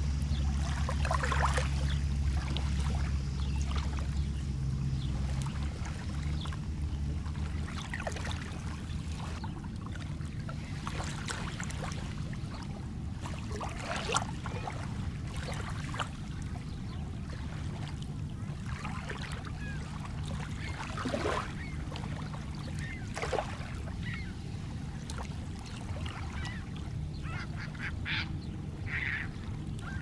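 Small lake waves washing on a pebble shore, a steady low rumble under them, with scattered short bird calls over the water, some falling in pitch.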